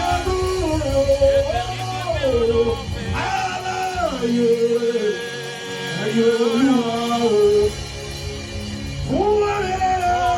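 A man singing a slow Yoruba gospel praise song in long held, sliding notes over keyboard and a steady drum-and-bass beat; the beat drops out for a few seconds in the middle, then comes back.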